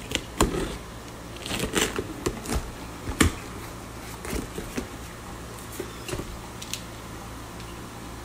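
Utility knife slicing through packing tape on a cardboard shipping box, then the cardboard flaps being pulled open and plastic bags inside rustling. A quick run of sharp clicks and scrapes, the loudest about three seconds in, thinning out to scattered rustles later.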